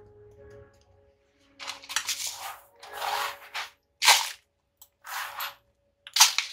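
Gritty bonsai substrate being scooped and poured into a pot around the roots in several short hissing bursts, with two sharp clicks about four and six seconds in.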